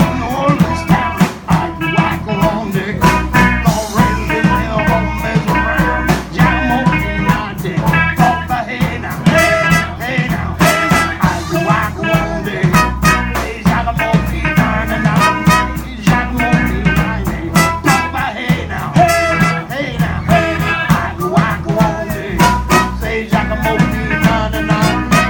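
Live band playing blues with a steady drum beat, the harmonica cupped against a vocal microphone taking the lead over electric guitar, saxophone and keyboard.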